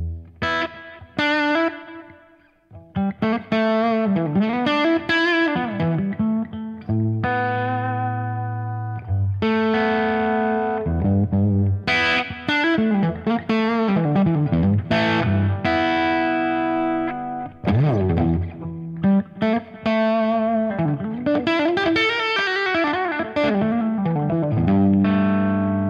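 Electric guitar played through a Fractal Audio amp-modeller crunch preset: overdriven lead lines and chords with string bends, vibrato and held notes. The playing drops away briefly about two seconds in and again past the middle.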